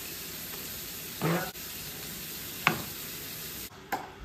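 A slotted spatula turning baked chicken meatballs and vegetables on a parchment-lined metal baking tray: a soft scrape about a second in, a sharper clack near three seconds and a small knock near the end, over a steady faint hiss that drops away shortly before the end.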